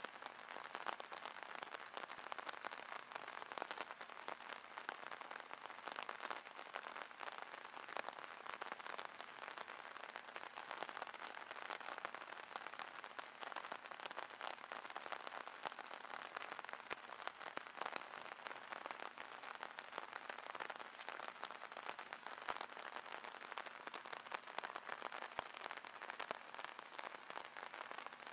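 Steady rain falling, heard as a dense, even crackle of drops.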